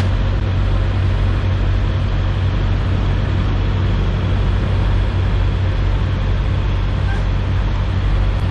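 Semi truck's diesel engine idling, a steady low drone that does not change.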